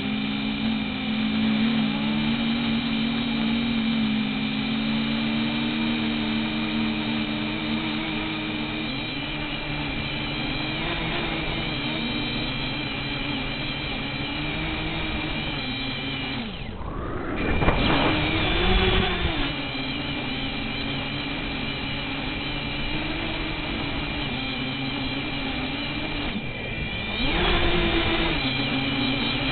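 XK X251 quadcopter's motors and propellers whirring steadily in flight. Twice, about halfway through and again near the end, the whir briefly drops away and then surges back louder with a rising pitch as the throttle is cut and punched again.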